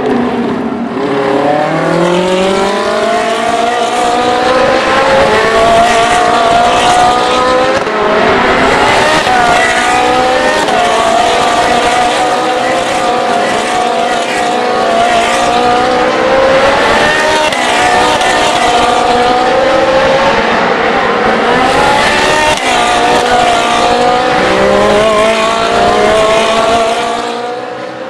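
Ferrari 458 Challenge race cars' V8 engines accelerating hard one after another, each engine note rising through repeated upshifts, the cars overlapping in a continuous loud pack. The sound eases off near the end.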